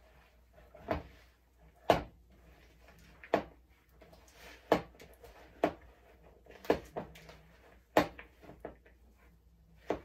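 A spoon knocking against the side of a mixing bowl while stirring a thick, sticky mixture of oats, seeds, honey and almond butter: short knocks at irregular intervals of about a second.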